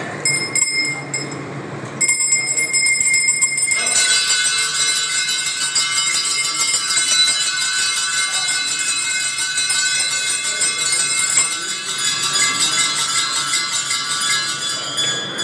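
Several temple bells ringing together without pause, faint at first, swelling about two seconds in and fuller still from about four seconds in.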